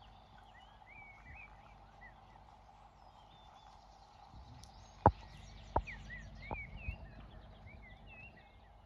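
Small birds chirping and singing over faint steady outdoor background noise. About halfway through come four sharp knocks within two seconds, the first the loudest.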